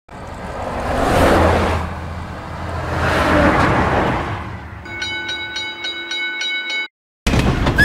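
Two road vehicles drive past one after the other, each sound swelling and fading. A level-crossing warning bell then rings rapidly, about five strikes a second, for roughly two seconds as the crossing barriers come down, and cuts off suddenly.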